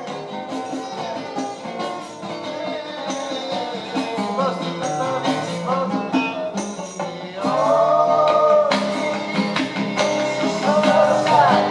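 Acoustic rock music: strummed guitars with tambourine, getting louder a little past halfway as a melody line comes in.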